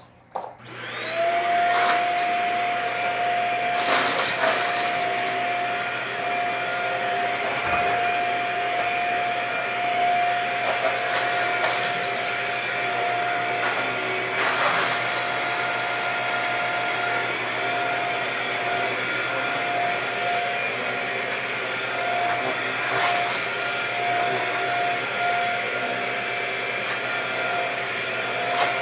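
Vacuum cleaner switched on, its motor winding up within the first second to a steady whine, then running as it is pushed over a rug strewn with debris, with a few brief rattles as bits are sucked up.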